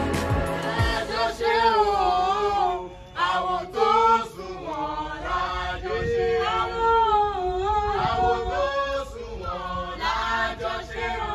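Voices singing a chant-like song in long, gliding held notes.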